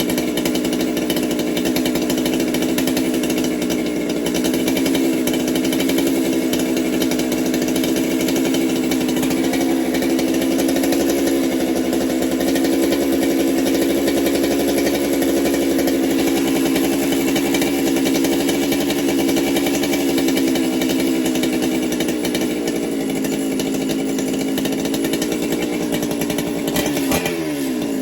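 Ported Husqvarna 395XP two-stroke chainsaw with a modified muffler, running steadily at an even speed while it warms up before carburettor retuning. Near the end its pitch rises sharply as it revs up.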